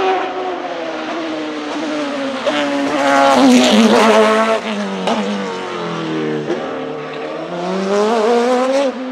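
Hillclimb race prototype's engine at high revs as the car passes close by, pitch climbing and breaking off at each gear change. The pitch steps down through several downshifts for a corner, then climbs again as the car accelerates away, and the sound cuts off suddenly near the end.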